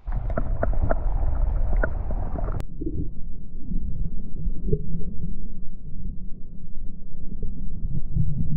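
Splashing and handling knocks as a camera goes into a shallow creek. About two and a half seconds in, the sound turns to a muffled low rumble and gurgle of moving water, heard with the microphone fully underwater.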